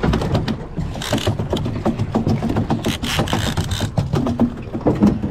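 Boat engine running steadily, with small clicks and knocks of fishing rods and line being handled, and two short bursts of hiss about a second in and around three seconds in.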